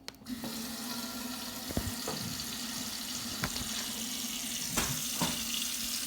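Water running from a tap whose handle is opened to about one gallon per minute, coming on suddenly at the start and then flowing as a steady hiss, with a few light knocks.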